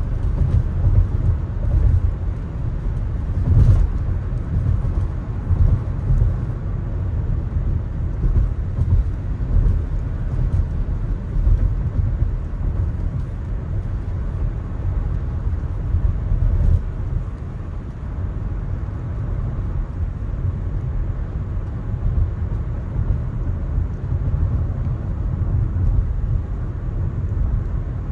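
Electric car (Tesla) driving on wet city roads: a steady low rumble of tyre and road noise with no engine note. There are scattered light ticks in the first several seconds and a louder jolt about four seconds in.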